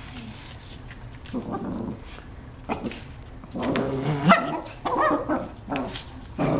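Several Shih Tzus play-fighting and vocalising in short bursts, with a few sharp clicks. The calls come thicker and louder from about three and a half seconds in.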